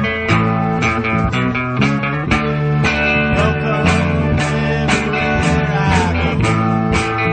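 Rock song played by a band with electric guitar, bass and drums: guitar chords over a steady drum beat of about two hits a second.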